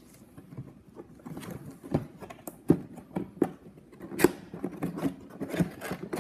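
Cardboard box being handled and its lid lifted off: rustling and scraping with a series of sharp knocks and taps, the loudest about two, three and four seconds in.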